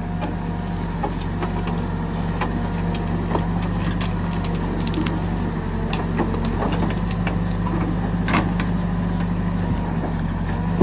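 Case 770 backhoe loader's diesel engine running steadily under hydraulic work, with many sharp clacks and knocks of stones and gravel rattling as the backhoe bucket dumps its load into a tractor trolley and scrapes into the rocky ground.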